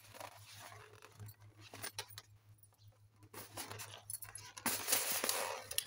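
Hands handling an inflated twisted latex modelling balloon. The latex rustles and rubs with a few light clicks, growing louder over the last two seconds.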